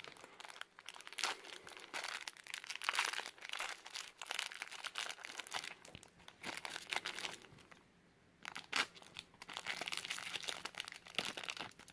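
A small plastic parts bag crinkling as it is handled and opened by hand, pausing briefly about eight seconds in.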